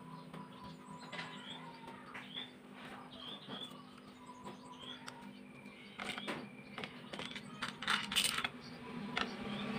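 Scattered light metallic clicks and clinks, busiest and loudest a few seconds before the end, with faint bird chirps behind them.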